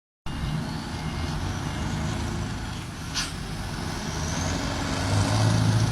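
Scania V8 diesel truck engine running with a steady low rumble that grows louder near the end. A brief hiss comes about three seconds in.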